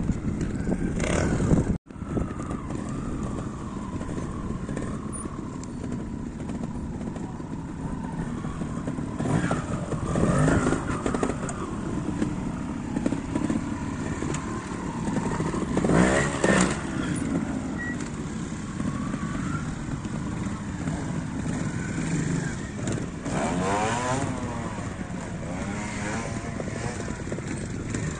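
Trials motorcycle engine idling and blipping the throttle in short, sharp revs as the rider works over rocks, with several louder rising revs spread through.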